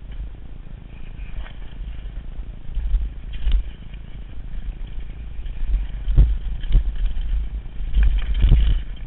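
Downhill mountain bike rattling and clattering down a rough dirt trail, with wind buffeting the camera microphone as a constant low rumble. Several sharp knocks from the bike hitting bumps, the loudest about six seconds in and near the end as it runs over wooden slats.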